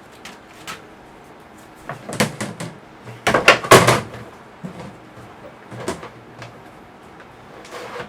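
Hard plastic parts of a worm compost bin knocking and clattering as they are handled and fitted together. There is a cluster of loud knocks about two to four seconds in, with lighter scattered clicks around it.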